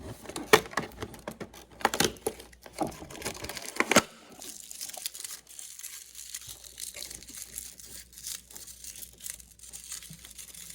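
A small toy surprise wrapper being torn open and crinkled by hand: a few sharp rips in the first four seconds, then softer, steady crinkling.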